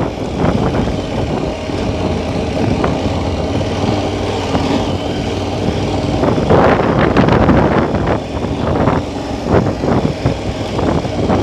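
2016 KTM 1290 Super Adventure's V-twin engine running under way as the bike is ridden off-road, with a louder, rougher stretch about six and a half seconds in.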